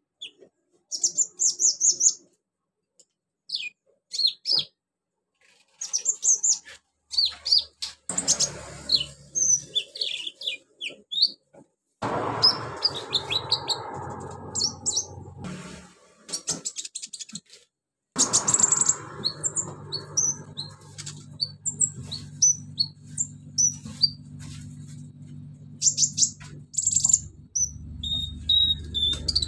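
Ruby-cheeked sunbird (konin) singing in bursts of rapid, high-pitched chirps and short twittering notes, broken by abrupt pauses. From about twelve seconds in, a steady low hum with a hiss runs beneath the song.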